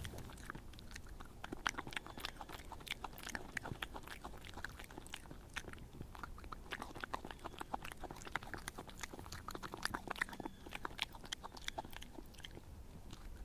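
A European badger chewing and crunching peanuts and crackers: a rapid, continuous run of small crisp crunches and clicks.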